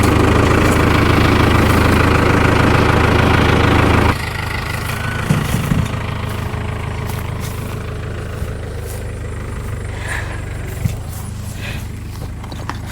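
A vehicle engine running steadily and loudly, then dropping abruptly to a lower, quieter run about four seconds in, with a few light clicks over it.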